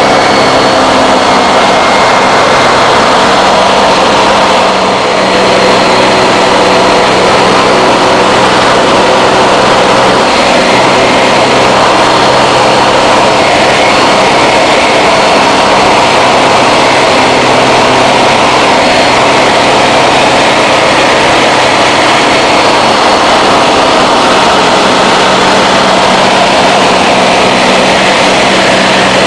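A Kitfox IV light aircraft's piston engine and propeller running steadily in flight, heard from inside the cockpit as a loud, even drone.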